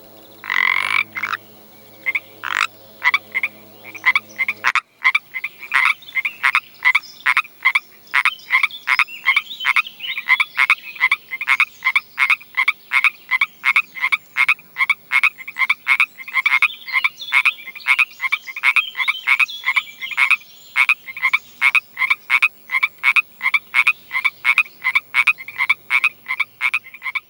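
Frogs croaking in a rapid, steady series of short calls, about three a second, many voices overlapping in a chorus. For the first five seconds a low steady hum lies under a few scattered croaks, then stops abruptly as the fast calling takes over.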